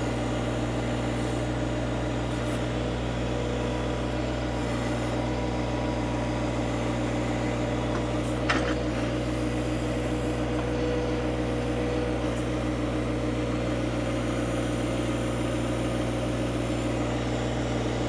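John Deere 1025R compact tractor's three-cylinder diesel engine running steadily while the backhoe works, with a single short knock about halfway through.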